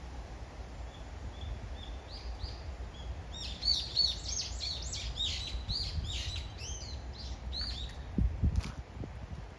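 A songbird singing: a few soft notes, then from about three seconds in a rapid run of loud down-slurred chirps for about four seconds. A low rumble runs underneath, with a couple of dull bumps near the end.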